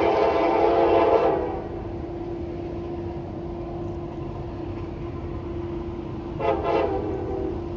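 Diesel freight locomotive's air horn: a long blast that cuts off about a second in, then a short blast near the end, over a steady hum.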